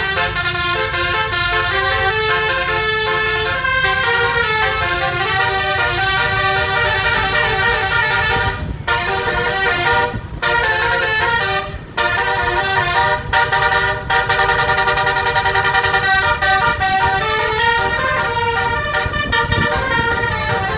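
Bus telolet horn, a 12-trumpet Basuri air horn set, playing a tune as a run of stepped notes with several trumpets sounding together, breaking off briefly a few times around the middle. A low rumble runs beneath it.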